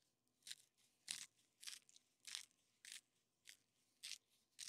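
Firebox G2 Micro stainless-steel salt and pepper grinder being twisted, its ceramic burrs grinding seasoning: a run of eight faint, short crunches about every 0.6 s.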